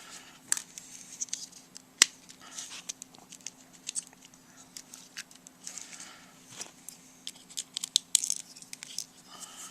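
Small clicks and brief scrapes of tools and fingers on the plastic parts of a flip phone being taken apart, the sharpest click about two seconds in.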